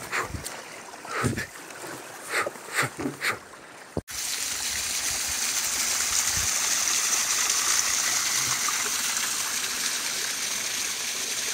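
A small mountain waterfall rushing steadily: an even, dense hiss of falling water that begins abruptly about four seconds in, after a few short sounds.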